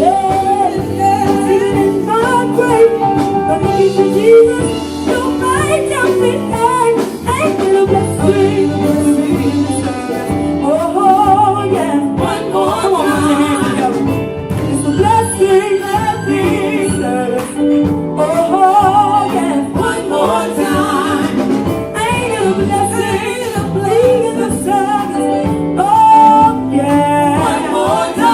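Gospel song sung by a group of women, with instrumental backing.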